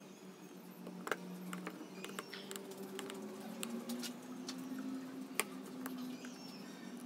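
Light clicks and taps of thin wooden slats being handled and pushed into a small wooden lantern frame, with a sharper click about a second in and another later on. A low steady hum runs underneath.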